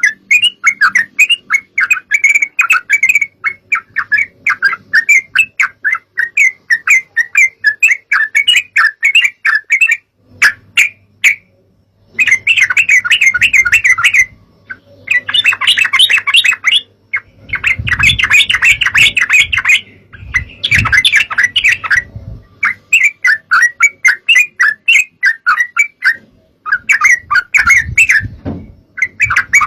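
Yellow-vented bulbul (trucukan) chattering: fast bubbly runs of quickly repeated notes in bouts, broken by short pauses about ten and fifteen seconds in, over a faint low hum.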